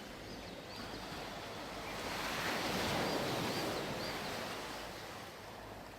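Ocean surf washing in, swelling to a peak about halfway through and then fading, with a few faint high chirps above it.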